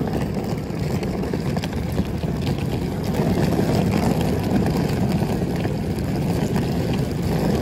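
Hard-shell rolling suitcase's wheels rolling over rough, cracked asphalt: a steady low rumble with fine rattling clicks.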